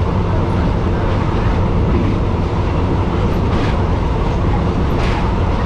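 State Railway of Thailand passenger train on the move, heard from inside an open-windowed carriage: a steady, loud rumble of the wheels on the rails.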